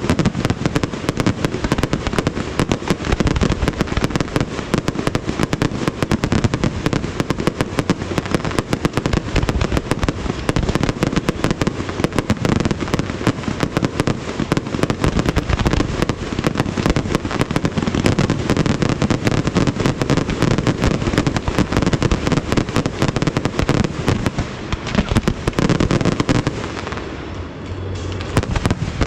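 Fireworks display: a dense, continuous barrage of bursting shells and crackling, easing slightly near the end.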